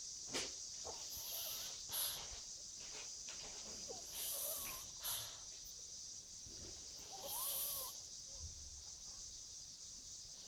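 Pug snoring in its sleep: three wheezy, hissing breaths about three seconds apart, two of them with a faint rising and falling whistle.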